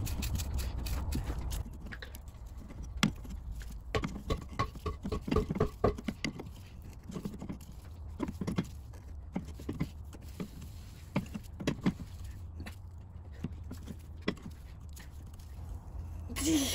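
Adjustable wrench clinking and knocking against a new inner tie rod as it is tightened onto the steering rack: irregular light metal clicks and taps, some with a brief ring, over a low steady hum.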